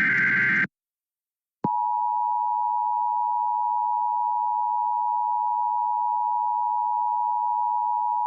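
Emergency Alert System tones: the end of the last burst of the SAME digital header, a short buzzing data screech. After about a second of silence the EAS two-tone attention signal starts and holds as a steady dual tone, announcing the warning message to follow.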